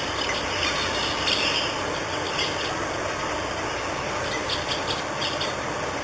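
Short, high bird chirps scattered over a steady rushing noise.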